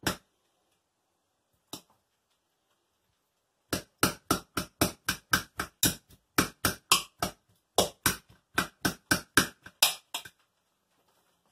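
A big fork mashing avocados in a mixing bowl, striking the bowl in quick, even knocks. After a couple of single knocks, a fast run of about four knocks a second starts about four seconds in and stops shortly before the end.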